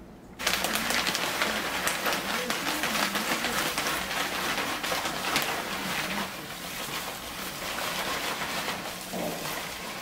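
Dried, chopped elder branch chips pouring out of a paper pouch and clattering onto a wooden tray: a dense rattle of many small clicks that starts suddenly about half a second in and eases off a little in the second half.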